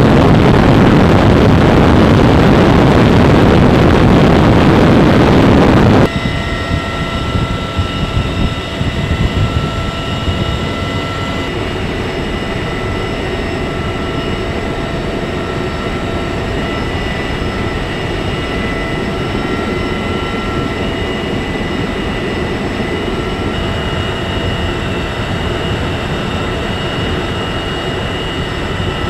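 Loud, even rushing roar of an aircraft in flight for about six seconds, then a sudden drop to the steadier sound inside a CH-53E Super Stallion's cockpit: its turbine engines and rotor system running with several steady high whines over a low rumble.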